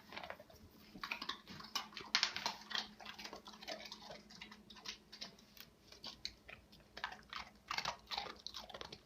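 A dog crunching and chewing a treat, irregular short crunches and clicks.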